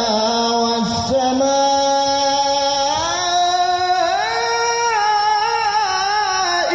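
Male qari's solo voice reciting the Qur'an in melodic tilawah style, holding long ornamented notes that step up in pitch about three and four seconds in. It is heard through the hall's loudspeakers.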